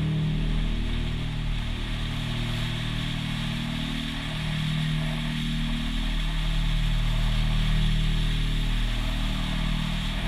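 BMW K1200S inline-four engine breathing through an Akrapovic slip-on exhaust, running steadily under way, with rushing wind and road noise.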